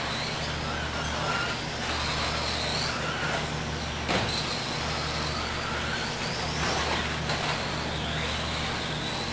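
Electric RC off-road buggies' brushless motors and gears whining, pitch rising and falling with throttle, over a steady low hum. A sharp knock about four seconds in.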